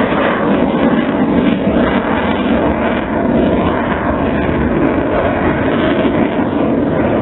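Airbus A400M turboprop transport flying past with a Eurofighter Typhoon close behind it, their engines making a steady, loud noise.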